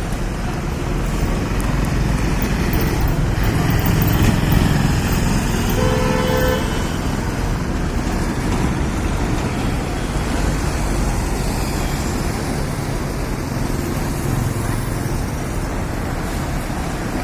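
Steady road traffic noise with vehicle engines running, and a short horn toot about six seconds in.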